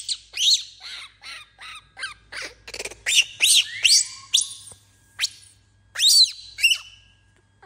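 Infant macaque giving repeated high-pitched squeaks. The calls come several a second in irregular runs, each one quickly rising and falling in pitch.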